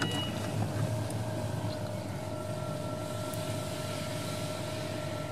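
Steady mechanical hum of automatic car-wash machinery, heard from inside a truck's cab, with a constant whine. A higher second whine joins about two seconds in, and a single click sounds at the very start.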